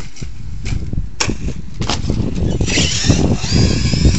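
Electric RC monster truck running on a Castle Mamba Monster 2200kv brushless motor, driving over a heavy low rumble, with a sharp knock about a second in. Past the halfway point a high, wavering motor whine comes in as the truck runs out onto pavement.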